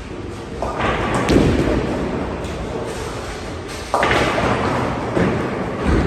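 Tenpin bowling alley noise: heavy thuds of balls on the lanes, and two sudden crashes that die away slowly, about half a second in and about four seconds in, typical of balls striking pins.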